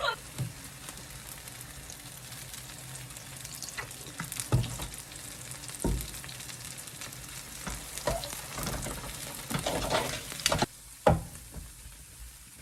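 Food sizzling in a frying pan while it is stirred with a utensil, with a handful of sharp knocks of the utensil against the pan.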